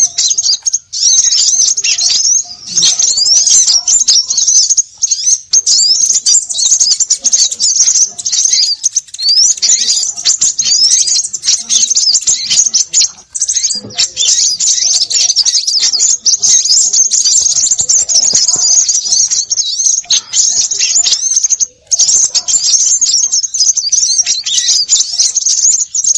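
Many small birds chirping and twittering at once in a dense, high-pitched, nearly unbroken chorus, a bird-lure recording of noisy small birds, with brief breaks about 14 and 22 seconds in.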